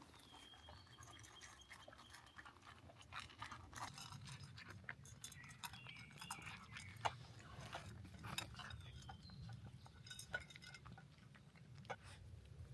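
A dog eating its food: faint, irregular crunching and chewing, with small clinks against its bowl.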